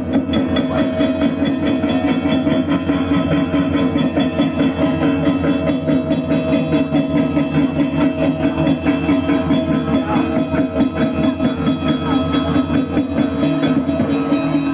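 Balinese gamelan accompanying a Barong dance, playing fast: bronze metallophones hold ringing tones over rapid cymbal and drum beats.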